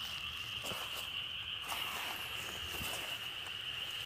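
Insects chirring: one steady high-pitched drone that holds unbroken, with a few faint rustles in among it.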